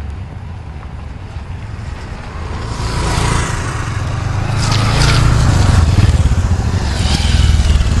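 A group of motorcycles and scooters riding toward the camera and passing close by. Their engines get steadily louder as they approach, loudest in the second half as they go past.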